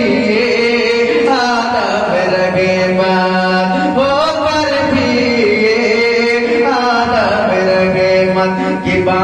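A man singing a naat, an Urdu devotional poem in praise of the Prophet, solo into a microphone in a slow chanting style. His long held notes glide from one to the next.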